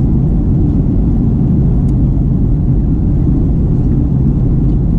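Steady low rumble inside the cabin of a Boeing 737-800 airliner, its CFM56-7B jet engines and airflow heard from a window seat.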